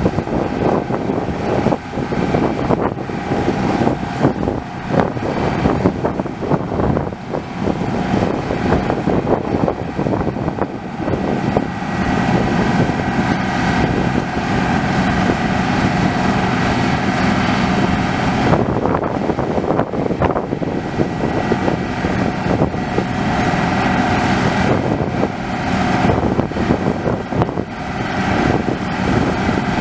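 Deutz-Fahr 4068 HTS combine harvester running steadily under load while combining winter barley, a constant engine and machinery hum, with wind buffeting the microphone through the first half.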